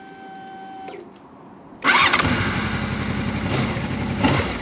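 Honda VFR800's V4 engine being started: a steady electric whine, the fuel pump priming after the ignition is switched on, stops about a second in; a second later the engine catches suddenly and settles into a steady idle.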